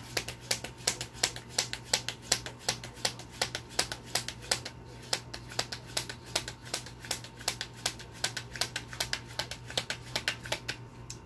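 A deck of tarot cards being shuffled by hand, a long run of quick card clicks at about five a second.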